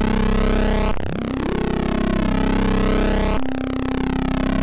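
Eurorack modular synthesizer patch of Rossum Trident oscillators waveshaped through a Klavis Mixwitch, playing a steady, buzzy, harmonic-rich drone. Its timbre keeps sweeping and restarts abruptly about a second in and again near the end.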